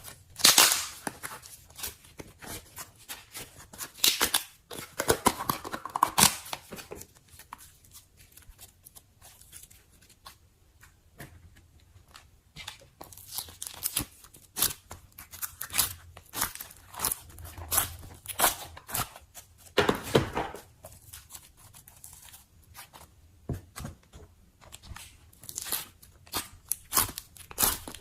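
Slime being poked and stretched by hand: a dense run of quick sticky clicks and pops, thicker in a few bursts.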